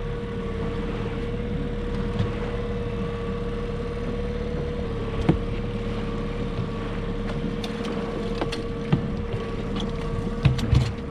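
Outboard boat motor running steadily at low speed, a constant hum over a low rumble, with a few sharp knocks scattered through the second half.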